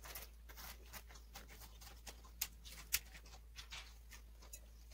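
Close-up sounds of a person eating rice and seafood by hand: irregular soft smacks and clicks, with two sharper clicks about halfway through.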